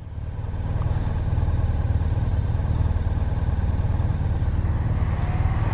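Motorcycle engine idling steadily while the bike waits at a junction: a low, even hum.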